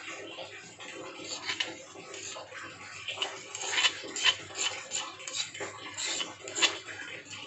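Ground shallot-and-garlic spice paste being scraped out of a stone mortar (cobek) into a pot: a run of irregular scraping strokes and knocks against the stone, getting sharper and louder about halfway through.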